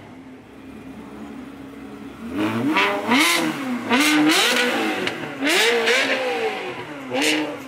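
Ferrari V8 idling, then revved hard four times from about two seconds in, each rev rising and falling in pitch.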